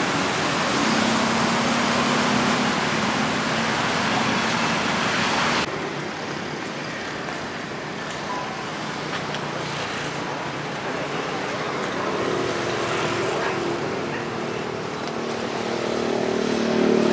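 Steady outdoor traffic noise, a continuous hiss of passing vehicles. It changes suddenly about six seconds in to a quieter mix, and a low engine drone builds near the end.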